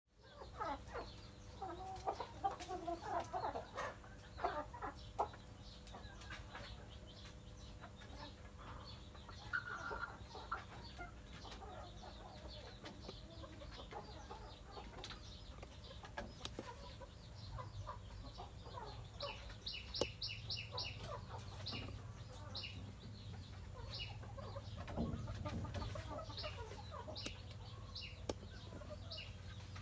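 Chickens clucking, busiest in the first few seconds, with scattered calls after and a quick run of high chirps about two-thirds of the way through.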